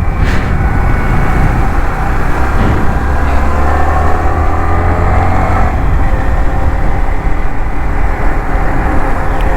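Yamaha MT-15's single-cylinder engine running as the motorcycle is ridden, its note climbing slowly and then dropping about halfway through.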